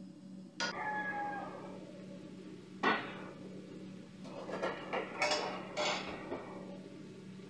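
A wooden spatula knocking against a stainless-steel skillet, the first hit with a brief metallic ring, then a single sharp knock and a short run of clattering knocks, over a steady low hum.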